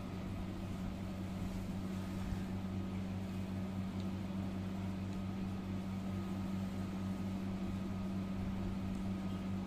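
Steady low electrical hum with a faint high whine above it, unchanging throughout.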